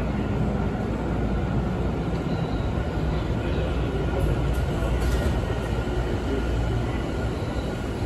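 Tobu 50070-series electric train arriving at an underground station platform: a steady low rumble of wheels and running gear.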